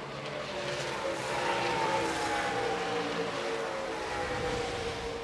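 V8 race truck engines running at speed on the track, heard as a steady drone whose pitch slides slowly down as the trucks pass.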